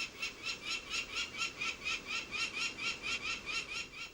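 An animal calling: a steady run of short, identical, slightly rising notes, about four a second, that stops suddenly at the end.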